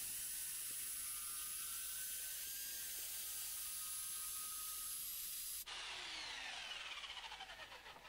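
Corded jigsaw running as it cuts through a wooden board, a steady high whine. About six seconds in the sound changes abruptly, and the motor's pitch falls away while the level pulses and fades.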